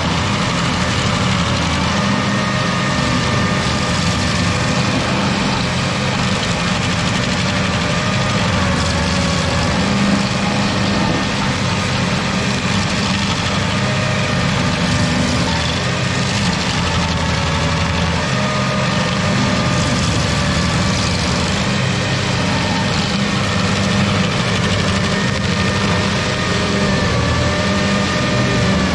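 Carlton 7015 tracked stump grinder running steadily while its cutter wheel grinds into a tree stump, the engine's pitch wavering slightly now and then under the load.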